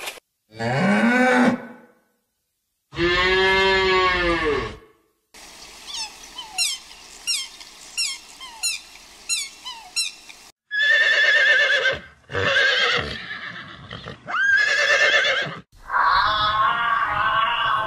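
A run of separate animal calls, one after another: two drawn-out pitched calls in the first five seconds, then a string of short falling chirps for about five seconds, then several loud pitched calls.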